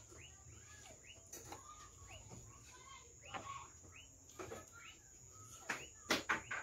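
Birds chirping faintly and repeatedly in the background, about two short chirps a second, over a steady thin high tone. A few sharp clicks stand out near the end.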